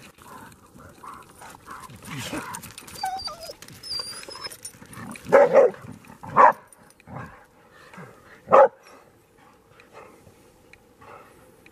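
Dogs barking at approaching coyotes, in single sharp barks: three loud ones a little past the middle, with quieter barks spread between.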